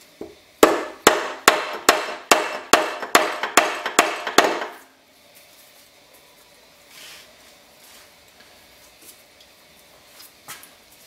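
A hammer tapping on a motorcycle engine's crankcase about ten times in a steady run, each blow ringing briefly, to break the joint and split the bolt-free crankcase halves apart. The tapping stops about halfway through.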